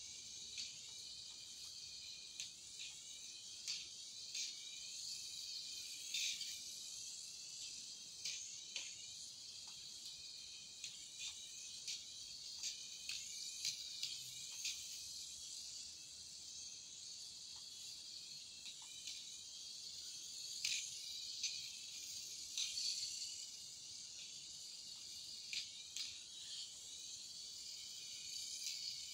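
Tiny Turbo Racing 1:76-scale RC sports car driving laps: a steady high-pitched electric motor and gear whine, with many light clicks and taps scattered through it.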